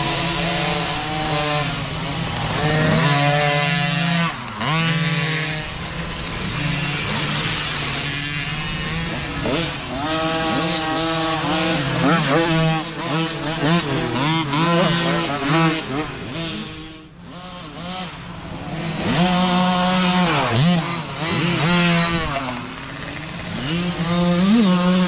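Several micro dirt bikes' small engines revving up and down as the bikes ride past one after another, the pitch rising and falling again and again over a steady low drone.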